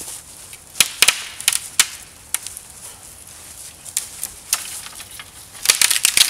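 Small dead maple, notched halfway through with a knife, cracking and splintering as it is pushed over: separate sharp cracks for the first few seconds, then a quick run of crackling near the end as the trunk gives way.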